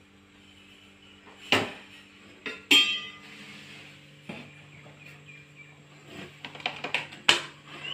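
Aluminium idli pot and lid clanking as the filled idli plates go in and the lid is put on: four sharp metal clanks, the second ringing briefly, with lighter clicks near the end. A faint steady hum runs underneath.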